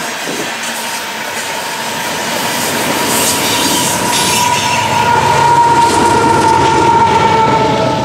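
Covered hopper cars of a freight train rolling past on a curve, wheels clattering over the rail with a steady high-pitched wheel squeal that grows louder in the second half. The rear distributed-power locomotive, a GE AC4400CW, passes in the second half, the train getting louder as it goes by.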